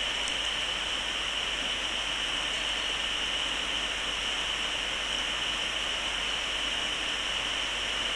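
Steady, even rush of a shallow stream running over rocks, with a constant high hiss over it.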